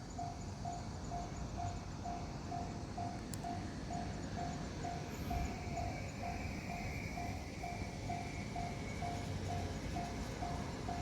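Japanese level-crossing alarm ringing its electronic bell, a single repeated tone at about two strokes a second, over a steady low rumble.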